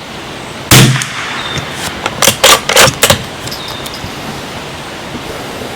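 A single .22 LR shot from a Bergara BMR bolt-action rifle about a second in, followed a moment later by a quick series of metallic clicks as the bolt is worked to chamber the next round. Steady wind noise throughout.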